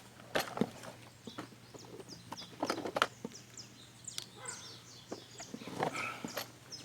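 Birds chirping: many short, high, quickly falling calls, overlapping throughout, with scattered clicks and knocks close by.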